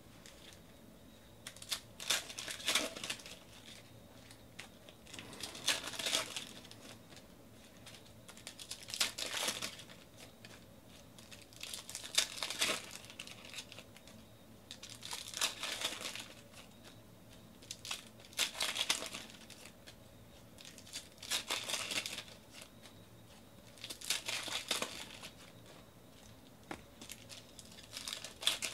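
Foil wrappers of 2019 Panini Donruss Optic Baseball card packs being torn open and crinkled by hand, one pack after another, in short bursts about every three seconds.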